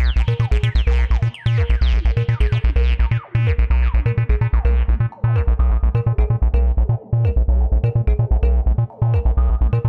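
Electronic background music with a steady beat, heavy bass and synthesizer.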